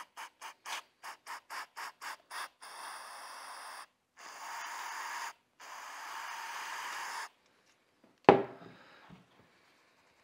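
Aerosol can of brake cleaner sprayed in a rapid run of short spurts, then in three longer hisses of a second or more each, flushing the tapped screw holes of a Smith & Wesson 686 revolver to degrease them before thread locker. About eight seconds in, a single sharp knock, the can set down on the wooden workbench.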